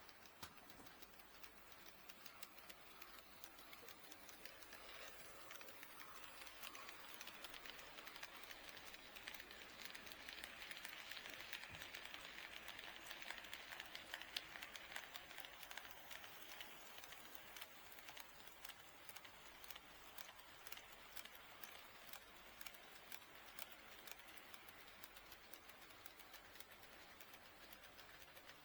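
An HO-scale model train, a KATO D51 steam locomotive model, running past on the track: faint rolling with many light clicks from the wheels over the rail joints, getting louder as it nears about halfway through and then fading as it moves away.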